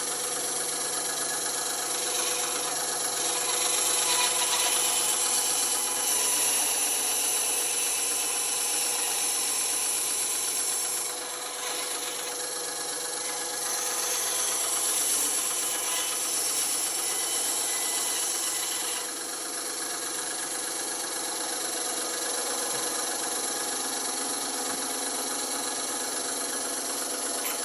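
Band saw running steadily while cutting wood. Its loudness rises and falls slightly as the blade is fed through the work.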